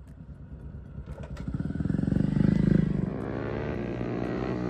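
Superbike engine coming closer, getting louder to a peak about two and a half seconds in, then dropping off as it goes past and away.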